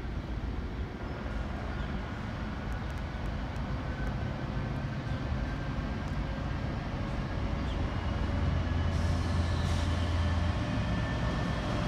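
Diesel locomotives PHC002 and PHC001 hauling a train as it approaches at low speed. Their engines make a steady low rumble that grows louder as they draw near, with the engine note strongest about eight seconds in.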